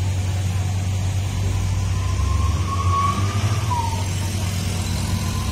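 Heavy truck's diesel engine running at low revs, a deep steady rumble, with a faint high whine over it that rises a little in the middle and dips about four seconds in.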